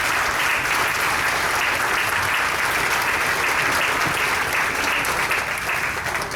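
A roomful of people applauding steadily, then tapering off near the end.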